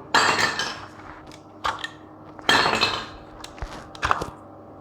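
Small hard plastic toys clattering and knocking together in about four short bursts.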